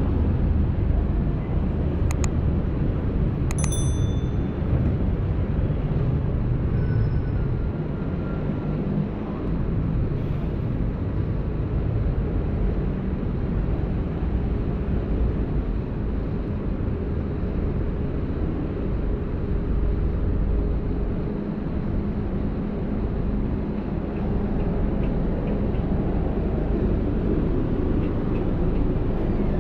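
Steady rumble of city-street road traffic, including double-decker buses. About two and three and a half seconds in come two short sharp metallic clinks, the second ringing briefly.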